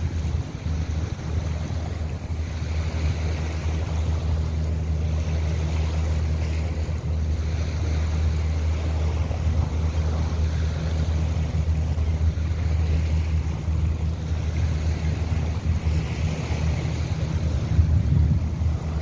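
Wind buffeting the microphone as a steady low rumble, over small waves lapping at a sandy shore that swell every couple of seconds.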